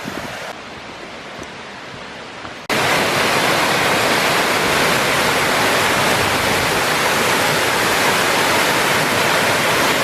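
Small creek waterfall (Dickerson Creek falls) pouring, a steady loud rush of water that comes in abruptly about a quarter of the way in, after quieter trailside water and wind noise.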